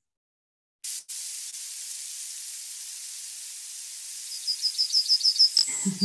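Recorded yellowhammer song played back over a steady hiss. About four seconds in comes a quick run of about nine short, very high notes growing louder: the 'little bit of bread' part of its song.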